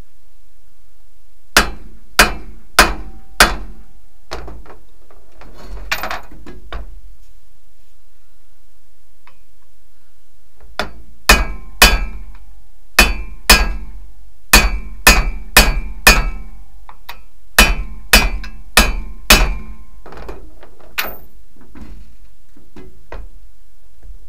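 Hammer blows on steel, driving a U-joint bearing cap into a drive shaft yoke, each strike ringing. There are four quick blows, then a pause with light clinking, then about a dozen more blows in pairs.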